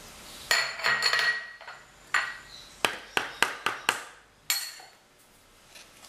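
Metal spoon knocking against a stand mixer's bowl and wire whisk to shake off a spoonful of butter: a few ringing clinks about half a second in, then a quick run of about six sharp taps and one last knock.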